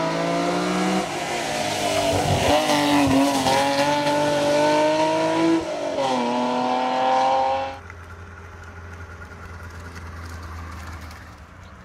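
BMW M635CSi's straight-six engine at full throttle, its pitch climbing through the revs and dropping back at each gear change. After about eight seconds it cuts off abruptly, giving way to a much quieter, low steady hum of an Auto Union DKW F102's two-stroke engine.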